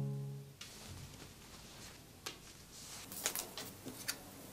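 An acoustic guitar chord fades out in the first half second. Then come soft rustling and a few light taps and clicks as hands handle folded denim jeans and a cloth tape measure on a table.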